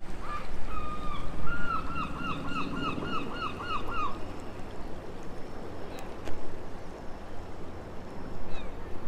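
A gull calling: a quick run of about nine hooked, repeated notes over the first four seconds, then only a steady hiss with a single sharp click about six seconds in.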